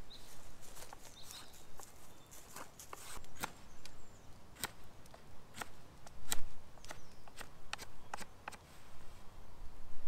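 A knife whittling a green hazel stick: sharp, irregular clicks as the blade bites into and shaves the wood, roughly one or two a second.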